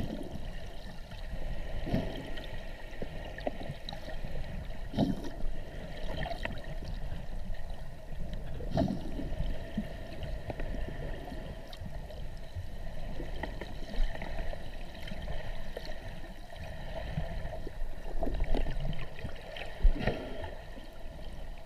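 Underwater ambience picked up by a camera in a waterproof housing: a muffled, steady rush and slosh of water, broken every few seconds by dull knocks. Near the end, snorkellers' fin kicks at the surface churn up bubbles.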